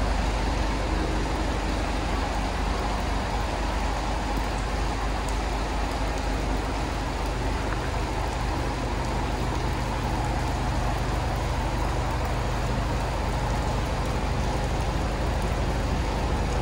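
Heavy diesel truck engine idling steadily, a constant low hum with no change in speed.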